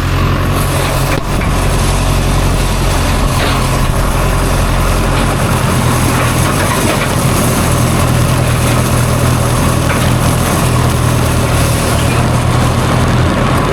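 Tractor engine running steadily while pulling a hay rake through the field.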